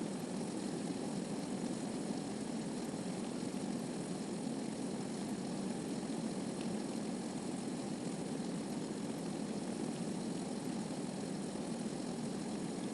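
Steady rushing water sound, an even unbroken wash strongest in the lower-middle range, used as the masking track over a subliminal Bible reading.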